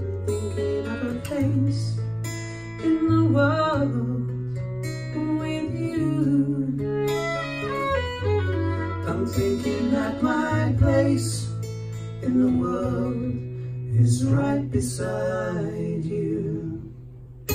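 Acoustic guitar strumming chords under a fiddle playing the melody, a live folk duet.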